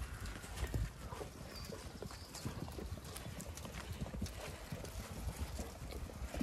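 Zwartbles lambs jostling and feeding at a metal trough: an irregular patter of clicks and knocks from hooves and muzzles around the trough.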